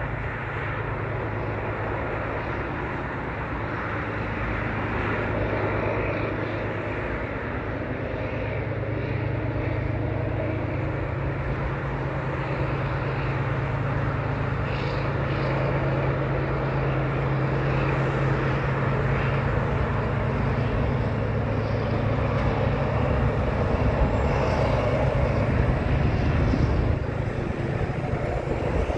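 KiwiRail DXC-class diesel-electric locomotive 5310, notched up and working hard under the load of a 44-wagon freight train. It makes a steady low engine drone that grows gradually louder as it approaches.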